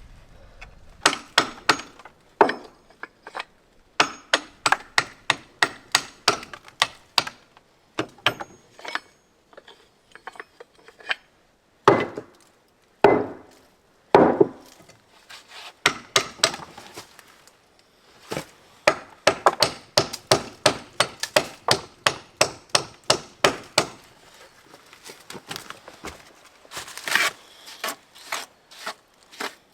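A long series of sharp, wood-like knocks, mostly in quick runs of about three a second, with a few heavier single hits and short pauses between the runs.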